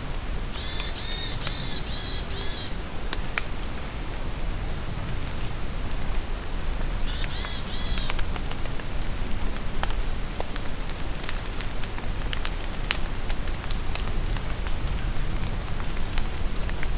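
Steady rain in a forest, with many drops ticking sharply on nearby surfaces. A songbird gives a fast run of high chirps about a second in and a shorter run around seven seconds in, with faint distant peeps between.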